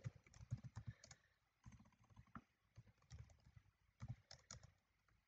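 Faint typing on a computer keyboard: short runs of quick keystrokes separated by brief pauses.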